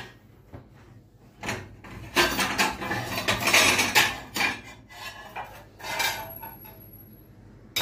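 Kitchen dishes and cutlery clinking and clattering as they are handled, busiest from about two to five seconds in.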